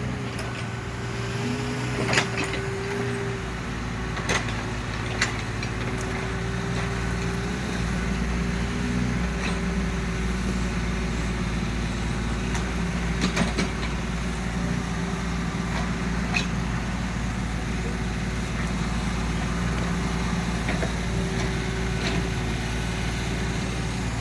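Heavy engine of well-drilling equipment running steadily with a constant low drone and a steady hum, with a few sharp clanks scattered through.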